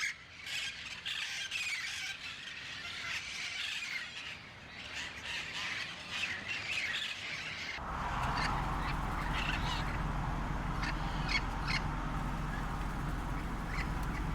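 A flock of red-masked parakeets (cherry-headed conures) squawking and screeching in many overlapping calls. About eight seconds in the sound changes to a steady low rumble with only a few sharp squawks over it.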